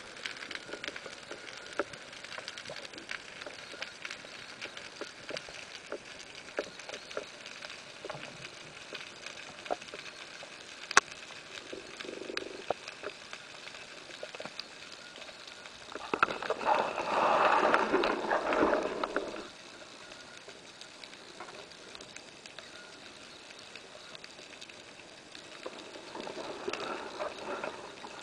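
Underwater ambience through a camera housing: a steady hiss full of scattered sharp clicks and crackles, with one stronger click about eleven seconds in. About sixteen seconds in, a louder rushing noise runs for about three seconds, and a similar but weaker rise comes near the end.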